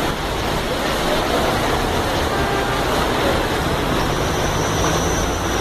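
Floodwater rushing steadily, with the low hum of car engines as cars drive through the flooded road.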